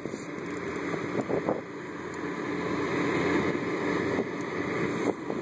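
A motor running steadily, with wind buffeting the microphone.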